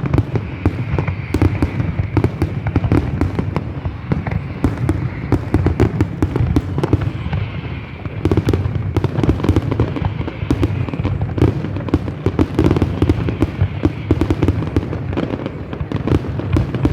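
Fireworks going off continuously, with dense, rapid bangs and crackling pops overlapping one another and a steady low rumble underneath.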